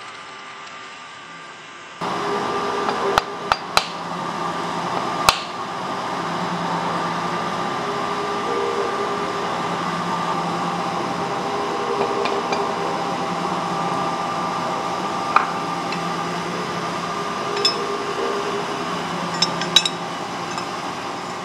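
Steel tools and a vise handle clinking and knocking on a machine shaper's large steel vise: a few sharp metallic knocks, over a steady mechanical hum that pulses slowly.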